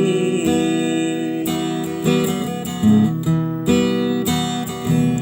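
Instrumental passage of a pop ballad between sung lines, with no voice: sustained chords that change roughly every second.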